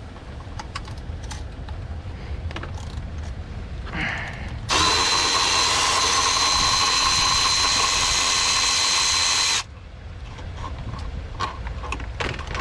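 A power drill-driver runs for about five seconds, backing out a water pump bolt. Its whine rises briefly as it spins up, holds steady, then cuts off abruptly. Small clicks of tool handling come before and after.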